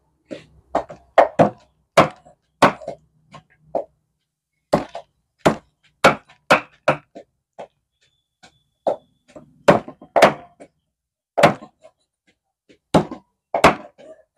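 Meat cleaver chopping through a raw duck carcass on a round wooden chopping block: about twenty sharp chops in uneven runs, with short pauses between them.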